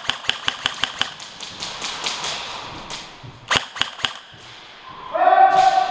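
Airsoft electric guns firing in an indoor arena: a quick run of shots at about six a second, then a few louder single shots about three and a half seconds in. Near the end a man gives a held shout.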